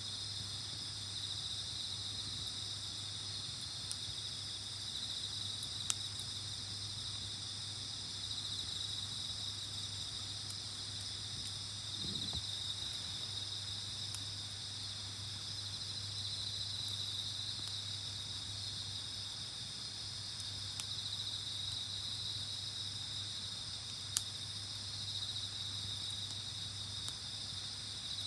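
Steady high chorus of night insects such as crickets, with a few sharp clicks standing out, two of them clearly.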